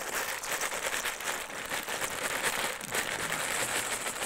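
Plastic bag of dry pasta crinkling as the pasta is shaken out of it into a pot of boiling water, a dense, steady rustle of small clicks.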